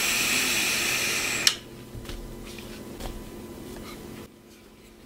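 A draw on a mechanical bottom-feeder box mod: a loud hiss of the firing coil and air pulled through the atomizer for about a second and a half, cut off by a click. Then a softer, longer breath as the vapour is inhaled and blown out, fading about four seconds in.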